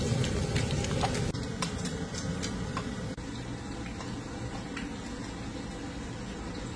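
Breaded fish fillets frying in hot oil in a cast-iron skillet: a sizzle with many sharp crackling pops, which thin out and stop about three seconds in, leaving a steady low background noise.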